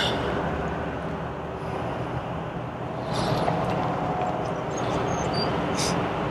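Steady low rumble of outdoor vehicle and traffic noise, with no voices.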